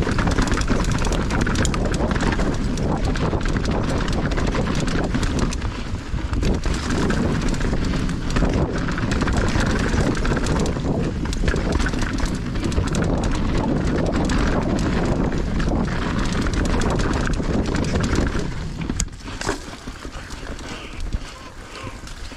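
Mountain bike rolling fast over a rough dirt trail: a steady rush of tyre and trail noise crowded with knocks and rattles from the bike over bumps, easing off about eighteen seconds in, with one sharp click a second later.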